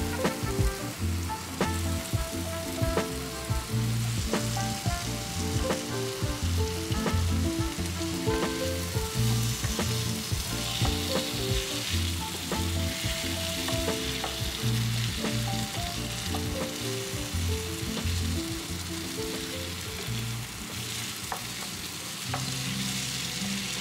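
Diced potatoes and onion-tomato masala sizzling in a hot stainless steel skillet, stirred and scraped with a wooden spatula; the sizzle grows louder about ten seconds in, after the potatoes go into the pan. Soft background music plays underneath.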